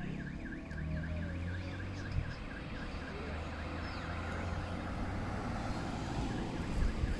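Electronic alarm warbling, its pitch dipping and rising again in a quick regular pattern several times a second, over a steady low hum.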